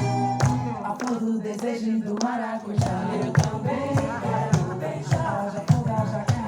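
Voices singing a song together over a steady percussion beat.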